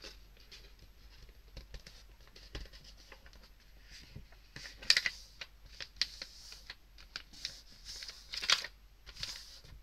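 A sheet of printer paper rustling and crackling as it is folded and its creases are pressed flat by hand, with many short crisp clicks. The loudest rustles come about five seconds in and again past the eighth second.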